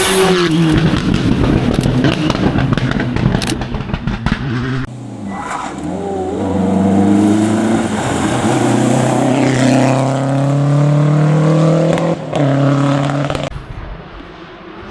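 Rally car engines at full throttle, passing and accelerating hard. The pitch climbs and breaks again and again through gear changes. The sound changes abruptly about five seconds in and drops away sharply near the end.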